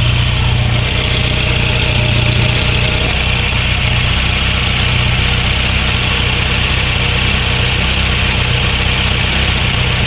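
Volvo B230F four-cylinder engine of a 1986 Volvo 745 GLE idling steadily. It sounds fine, which the owner takes to mean there is no real oil pressure problem and the oil light comes from the leaking oil pressure switch.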